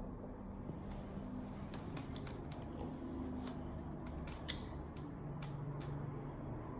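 Sleeping dog snoring: low, buzzing snores in several stretches, with a scatter of sharp clicks in between, the loudest about four and a half seconds in.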